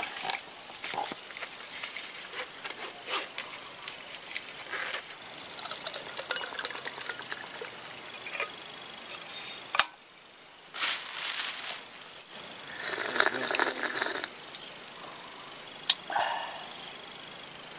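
Crickets chirring steadily at a high pitch, with a few clicks and rustles as a steel thermos flask is opened and coffee is poured into its cup.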